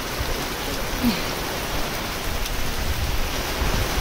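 Steady hiss of falling water: a waterfall, stream or heavy rain, with people standing in it and getting soaked.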